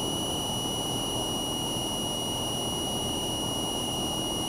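Cessna 172's engine and propeller running steadily in the cockpit during the climb after takeoff, with a steady high-pitched whine over the drone.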